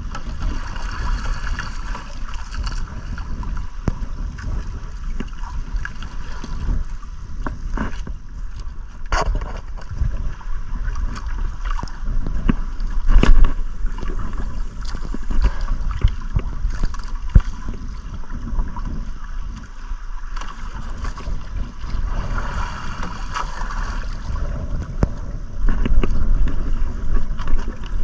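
Wind rumbling on the microphone and water sloshing around a small outrigger fishing boat, with scattered knocks and clicks from the boat and gear.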